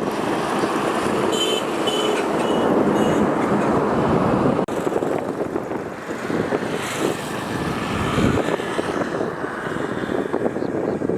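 Steady rushing noise of a moving vehicle, with a few short high chirps from about one and a half to three seconds in.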